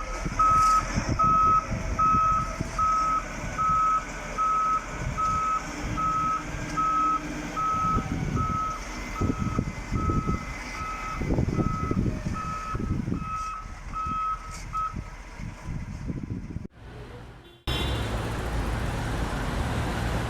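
Heavy road-works vehicle backing up: its reversing alarm beeps steadily at one pitch, about one and a half beeps a second, over diesel engine rumble and irregular clanks and knocks. The beeping stops about three-quarters of the way through, and after a short break a steady noisy hum takes over.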